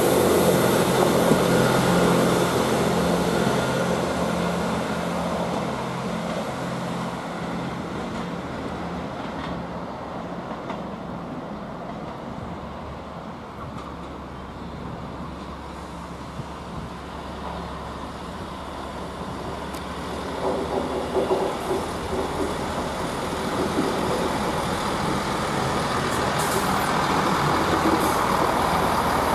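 British Rail Class 158 diesel multiple units running on their underfloor diesel engines. The steady low drone is loud at first, dies down through the middle, then builds again in the last third. A few sharp knocks come about two-thirds of the way in.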